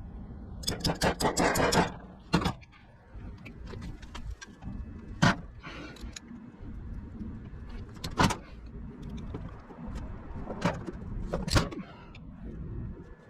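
Hand tools working the bolts of a Copeland semi-hermetic compressor as they are broken loose: a quick run of ratchet-like clicking about a second in, then single sharp metal clinks every few seconds.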